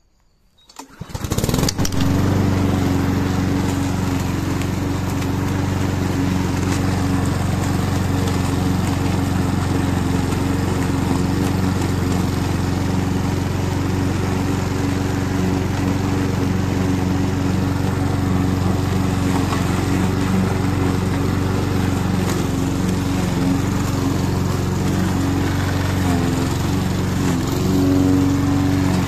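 Roller lawn mower's engine running steadily as it mows the lawn, starting about a second in.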